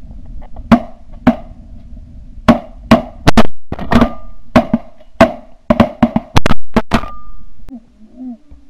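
A rapid string of shotgun shots, about sixteen sharp blasts in some seven seconds, bunched closest together in the second half, fired at ducks and geese in flight.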